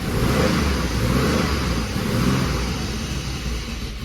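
Chrysler 3.7-litre V6 running rough, held on the throttle: a misfire on cylinder 5 (code P0305), which the owner traces to a bent valve.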